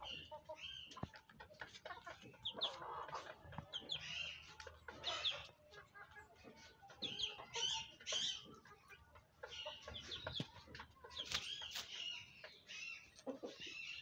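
Aseel chickens clucking, a string of short, high calls in quick succession.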